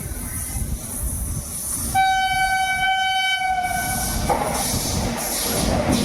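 WAG-9 electric locomotive's horn sounding one steady blast about two seconds in, lasting about two seconds, over the low rumble of the approaching train.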